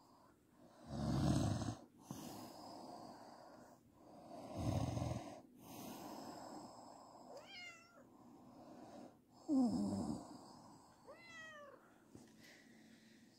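A woman snoring in sleep: three loud snores a few seconds apart, with quieter breathing between. Twice, in the second half, a short high wavering squeak sounds.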